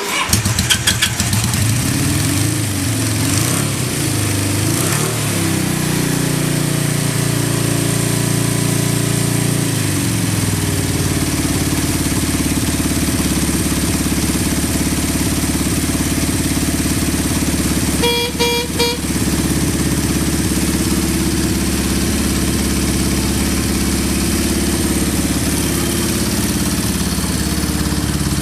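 Honda CB550 air-cooled inline-four engine running just after an electric start, its speed wavering for the first several seconds before settling into a steady idle with no abnormal noises. A little past the middle, the horn sounds a few short beeps.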